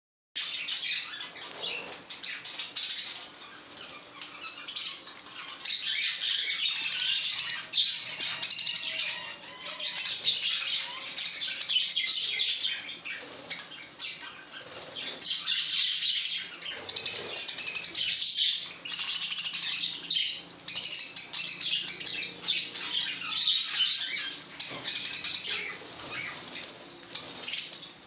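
A flock of budgerigars chattering and chirping together in a dense, continuous warble that swells and fades, with scattered short clicks through it.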